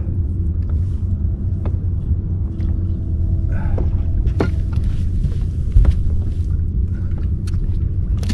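Steady low rumble on the boat, with a few sharp knocks and clicks of handling on board.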